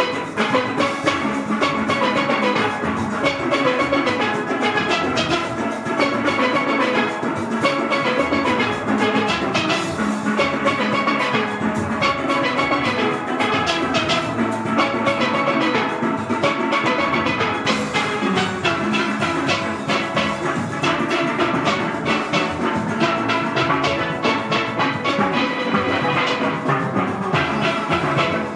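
A full steel orchestra, a large band of steel pans, playing a tune together with many quick, steady strikes.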